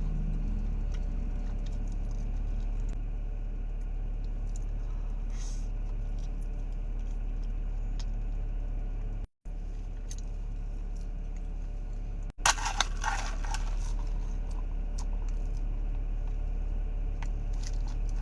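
Steady low hum of a car interior with small scattered clicks from eating. About twelve seconds in, a short, loud crinkling burst, as of a paper food wrapper being handled. The sound cuts out twice briefly.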